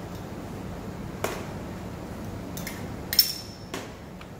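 Metal spoon clinking against a ceramic plate as cut fruit is stirred: about five light clinks, the loudest about three seconds in with a brief ring, over a steady low hum.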